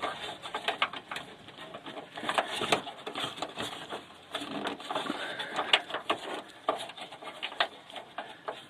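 Irregular clicks, taps and light rattles of hands working inside a van's front door, prising the plastic clips off the door-lock linkage rods.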